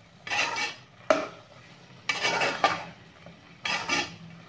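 A metal spoon stirring thick chicken masala in a metal pot, mixing in ground pepper as the curry finishes: four scraping strokes about a second and a half apart, the second one starting with a sharp clink of spoon on pot.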